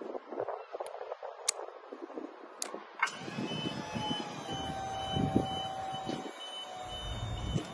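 Rustling and a few sharp clicks of rope and buckle being handled. About three seconds in, lifting machinery starts with a sharp click: a steady motor hum with a slowly falling whine and a high warning beep that sounds on and off, as it hoists a motorcycle by a chain.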